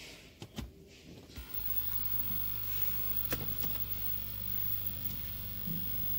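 A car being switched on: a few sharp clicks as the ignition key is turned, then a steady low hum that sets in about a second and a half in, with one more click partway through.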